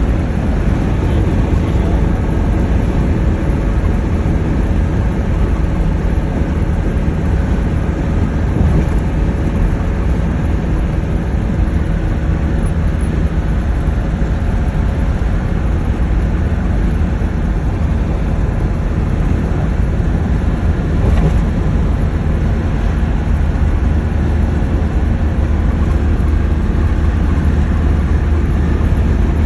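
A steady, loud low rumble with a few faint steady hums over it, unchanging throughout.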